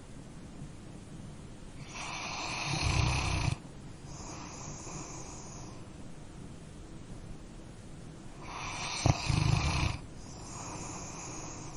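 Sleeping dog snoring: two snores about six seconds apart, each building to a loud rasp that stops abruptly. Each is followed by a softer, breathy breath.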